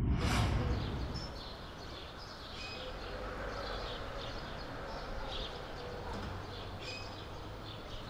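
The low rumbling tail of a whoosh transition effect fades out in the first second, giving way to outdoor ambience with birds chirping in short, scattered calls.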